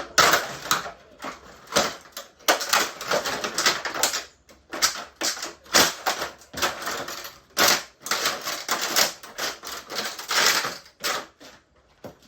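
Vintage Mistral Gyro-Aire box fan being smashed and broken apart: a dense, irregular clatter of sharp clicks, cracks and knocks from its housing and parts, with a short lull near the end.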